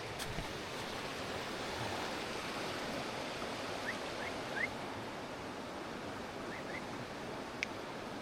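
Steady rush of flowing stream water. A few faint, short rising chirps come in two small groups midway, and a sharp click near the end.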